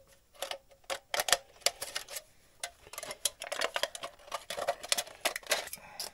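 Thin aluminium beer can being pierced and cut into strips: a run of irregular sharp clicks, snips and crinkles of the thin metal.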